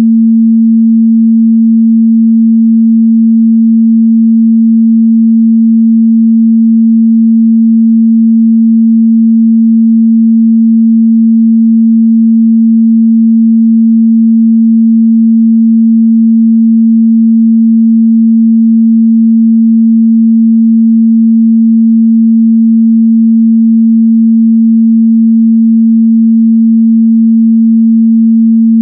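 Steady 226 Hz sine-wave test tone, a single pure mid-bass hum held at constant loudness, used to check a speaker's or headphone's response at that frequency.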